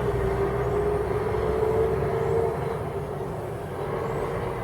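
Blizzard wind gusting, rumbling on the microphone with a howling tone, easing off about two and a half seconds in.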